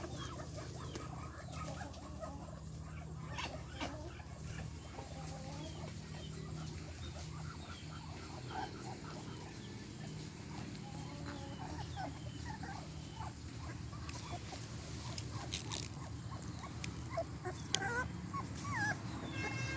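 Puppies whimpering and yipping among clucking chickens, with short high calls scattered throughout and a few rising whines near the end. A steady low hum runs underneath.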